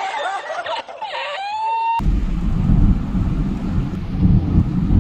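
A man's laughter from an inserted meme clip, high-pitched and broken, ending in a drawn-out rising note. About two seconds in it cuts off to the steady low rumble of a moving car's cabin, road and wind noise.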